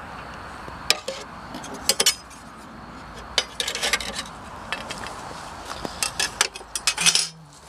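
Scattered sharp clicks and clacks of hard plastic radio-cabinet parts being handled and knocked together during disassembly, in a few small clusters, with the busiest clatter near the end.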